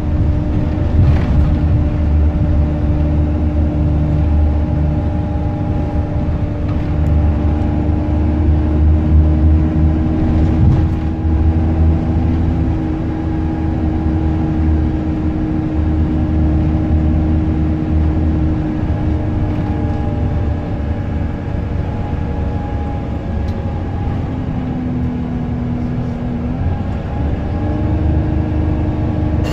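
Optare Versa single-deck bus driving, heard from inside the passenger saloon: a steady low engine and road rumble with a drivetrain whine over it. The rumble eases about two-thirds of the way through, and a short lower whine comes in a few seconds before the end.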